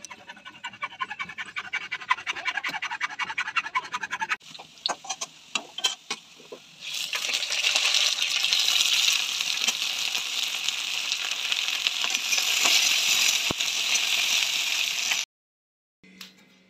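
Cut vegetables frying in hot oil in a wok on a gas stove: a loud, steady sizzle that starts about seven seconds in and cuts off suddenly near the end. Before it come rapid scraping and rattling clicks that thin out to scattered clicks.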